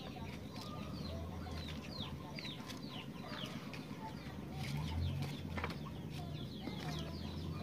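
Chickens clucking, with many short, high, falling chirps and a low steady hum underneath.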